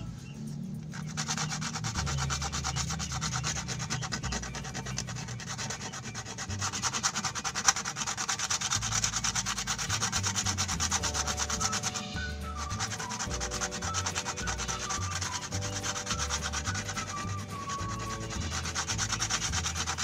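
Sandpaper rubbed back and forth in rapid short strokes over a hardened seam of super glue and tapioca starch filler on a clear plastic fridge door shelf, smoothing the repair flat. The rubbing stops briefly just after the start and again about halfway through.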